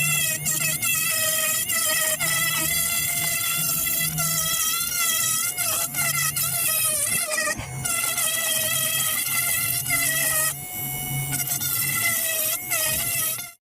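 Small high-speed rotary power tool grinding out cracked boat gelcoat, a steady high-pitched whine whose pitch wavers as the bit loads and unloads against the surface. It stops suddenly at the very end.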